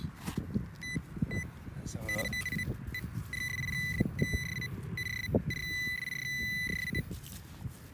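Handheld metal-detecting pinpointer beeping, first in short separate beeps, then in longer runs from about three seconds in, signalling metal close to its tip in the soil. Under it, soil crunches and scrapes as the probe is pushed through the loose earth of the dig hole.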